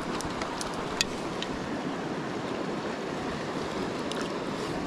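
Shallow mountain stream rushing steadily over rocks, with a few small sharp splashes or clicks of water in the first second and a half.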